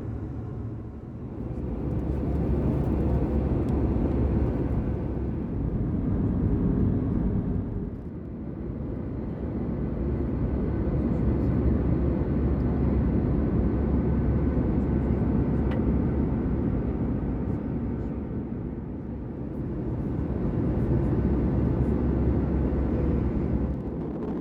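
Steady low rumble of an Airbus A320 in flight as heard from inside the cabin: engine and airflow noise with a faint steady hum. It dips in level about a second in, around 8 seconds in and around 19 seconds in.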